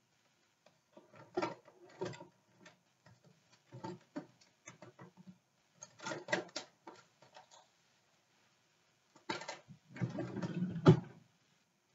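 Handling noise close to the microphone: scattered clicks, knocks and rustling in irregular clusters, with a sharp knock near the end as the loudest sound.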